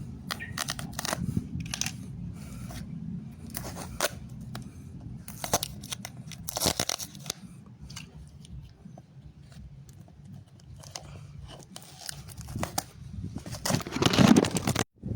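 A shipping parcel being opened by hand: irregular tearing and cutting of its plastic and tape wrapping, with a louder, denser stretch of tearing near the end.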